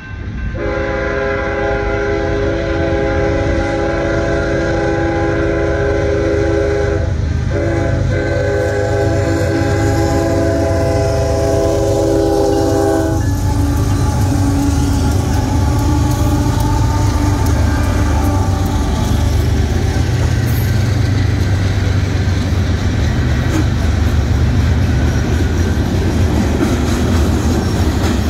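Union Pacific freight train's diesel locomotive sounding its multi-note chord horn in two long blasts for the grade crossing, the second following a brief break, until the lead locomotive reaches the crossing. Then the locomotives rumble past, followed by covered hopper cars with wheels clicking over the rail joints.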